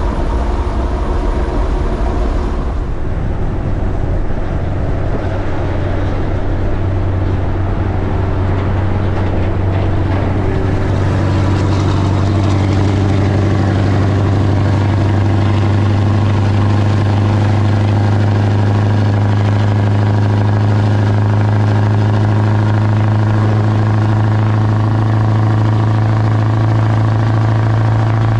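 Scania heavy truck's diesel engine running at a steady cruise alongside, with tyre and wind noise. About eleven seconds in, its deep drone grows louder and steadier.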